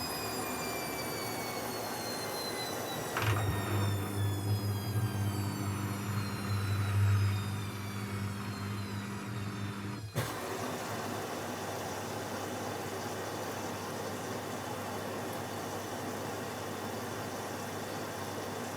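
Techwood WB 91042I washing machine running: its drum motor whines with several tones slowly falling in pitch as it slows, with a click about three seconds in and a low hum for a few seconds after. About ten seconds in the sound changes abruptly to a steady rush of water filling the machine.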